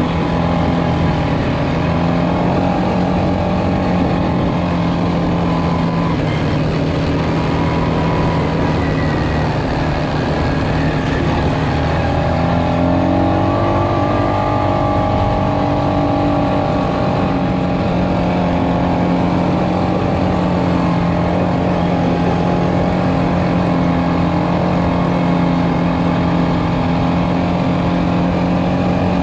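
ATV engine running steadily as the quad rides along a dirt trail, its note dipping and then rising once about halfway through before settling back to an even pitch.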